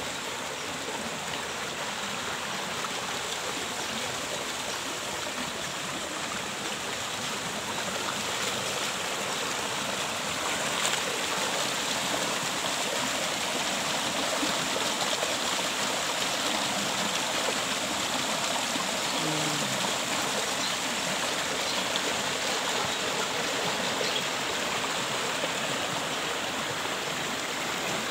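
Small rocky mountain stream running over boulders: a steady rush of water that grows a little louder about a third of the way in.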